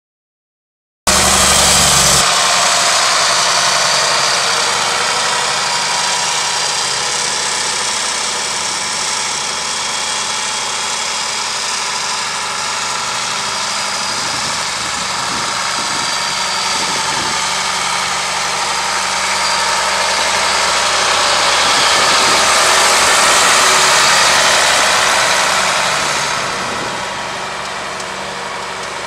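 1976 Case 1570 tractor's six-cylinder diesel engine running steadily as the tractor drives across grass. The sound comes in abruptly about a second in, grows louder a little past the middle, and eases off near the end.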